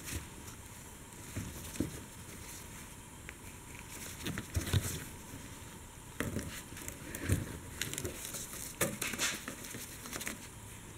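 Plastic quick-connect fuel line fittings being squeezed and pulled off the metal tubes on top of a fuel tank sending unit: scattered clicks, scrapes and rustles of handling, the sharpest about halfway through.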